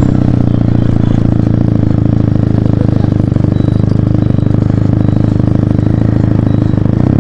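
Benelli TNT 300's parallel-twin engine running through an SC Project aftermarket exhaust, holding a steady, even engine note at low revs while the motorcycle cruises.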